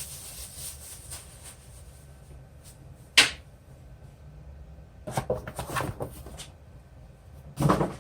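Packaging and parts being handled while unboxing: a sharp knock about three seconds in, a spell of rustling and clatter about five seconds in, and a thump near the end.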